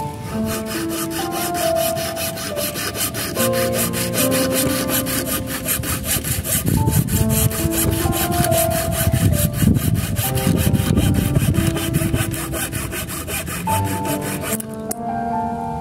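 Hand saw cutting through a wooden log clamped in a vise, in rapid, even back-and-forth strokes, over soft melodic background music. The sawing stops about a second before the end.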